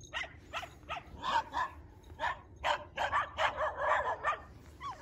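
Dogs barking repeatedly: a run of short barks, a few at a time at first, then coming thick and overlapping in the second half.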